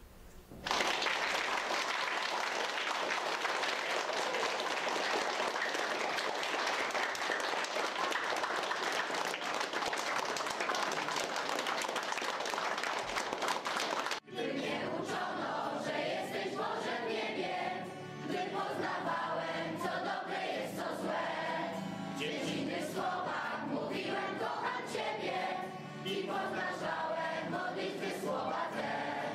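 An audience clapping steadily for about thirteen seconds, which cuts off suddenly. Then a group of young voices sings together to an acoustic guitar.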